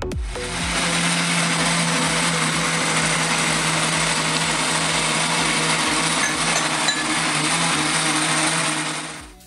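Countertop blender running at a steady speed, blending a liquid shake of almond milk and banana: a dense whirr over a constant motor hum, starting just after the beginning and winding down to a stop near the end.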